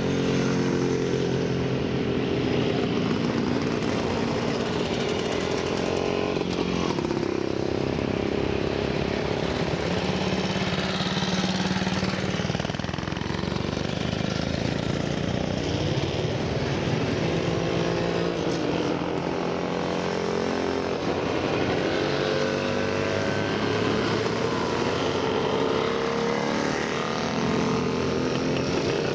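A column of vintage motorcycles, Jawas among them, riding past one after another, several engines overlapping, each rising and then falling in pitch as it goes by.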